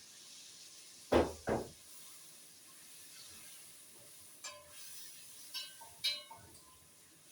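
Pot of chicken cooking with a faint steady sizzle, two loud knocks close together about a second in, then a few short ringing clinks of a utensil against the pot.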